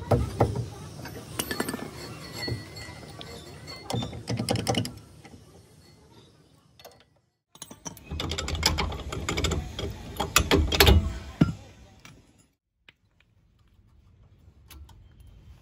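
Metal hand tools clinking, knocking and ratcheting on a car's drum brake assembly, in two busy stretches with the loudest knocks about ten to eleven seconds in. The last few seconds are faint.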